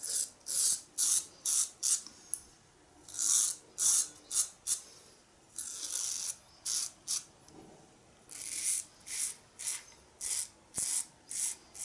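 Merkur Futur adjustable double-edge safety razor scraping through lather and stubble on the neck during the second pass. It makes a series of short raspy strokes, two to three a second, in runs with brief pauses between them.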